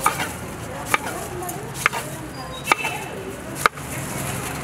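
Knife striking a wooden chopping block as rind is sliced off a muskmelon: five sharp chops about a second apart.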